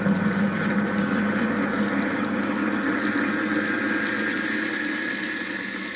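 Kitchen sink garbage disposal running with a steady hum, churning a cleaning tablet.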